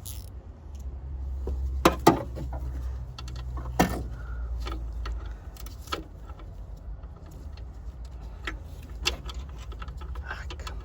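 Irregular metallic clinks and knocks of a 12 mm socket and spinner handle against a bolt and bracket on the engine, sharpest about two and four seconds in, over a steady low rumble.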